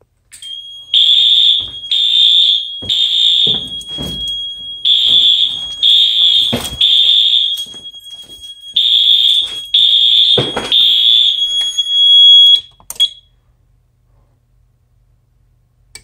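Fire alarm system in alarm, set off by a System Sensor i3 smoke detector: Wheelock AS horn-strobes sound in groups of three blasts with a pause between, three groups in all, over a steady high-pitched beep. A few dull thumps come in between, and everything stops about 13 seconds in.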